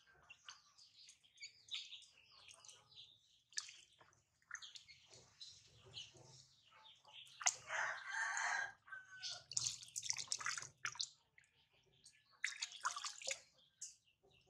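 Water splashing and dripping in a plastic basin as hands wash a baby monkey, coming in irregular bursts, the loudest about halfway through.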